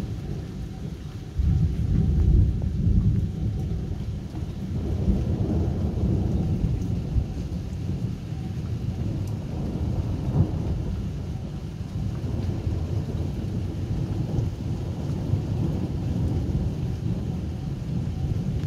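Thunder rumbling in a storm, breaking in loudly about a second and a half in and then swelling and easing in waves, with rain falling.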